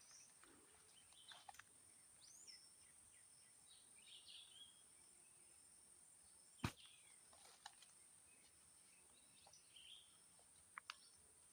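Faint birds chirping over a steady high hiss, with a single sharp click about six and a half seconds in.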